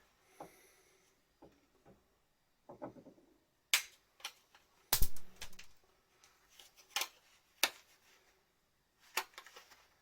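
A handful of sharp clicks and knocks of hard objects being handled and set down, the loudest about halfway through, with a little rustling between them.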